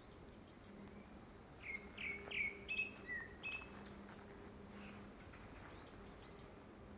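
Grey-backed thrush singing: one phrase of about six short whistled notes, followed by a few fainter higher notes. By the season, the uploader takes it for courtship song ahead of a second brood.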